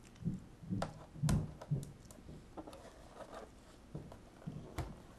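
Handling noise from a plastic wall-clock case: a series of light clicks and dull knocks as it is gripped and turned by hand. Most come in the first two seconds, with one more sharp click near the end.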